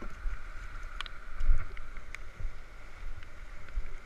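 Wind buffeting a body-worn action camera's microphone in uneven low gusts over a steady hiss, with a few light clicks.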